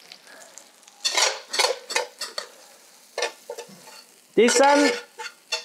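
Metal spoon scraping and stirring cheese spätzle in a stainless steel frying pan: a quick run of scrapes and knocks from about a second in. Near the end, the spätzle are scraped out of the tilted pan.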